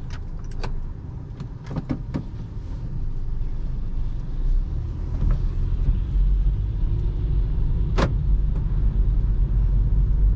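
Cabin noise of a 2022 Honda City 1.5 CVT driving on a wet road: a steady low rumble of road and engine that grows louder from about four seconds in. A few short clicks come in the first two seconds, and one sharp click comes about eight seconds in.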